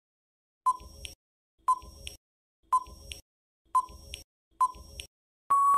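Quiz countdown timer sound effect: five short ticking beeps about a second apart, then a longer steady beep near the end as the time runs out.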